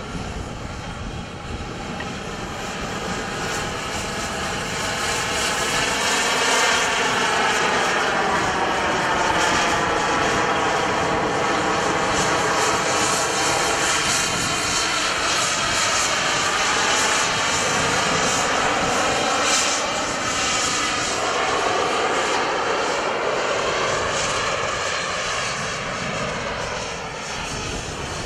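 Two radio-controlled model jets' turbine engines whining as the jets fly overhead. The sound builds over the first few seconds, stays loud, and eases off near the end, its pitch wavering up and down as the jets move about the sky.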